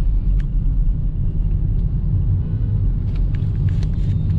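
Steady low rumble of road and engine noise inside the cabin of a moving Toyota sedan, with a few faint clicks near the end.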